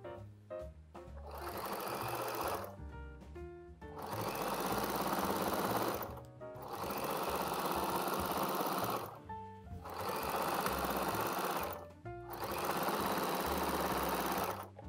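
Electric domestic sewing machine stitching in five runs of about two seconds each, stopping briefly between runs, over background music.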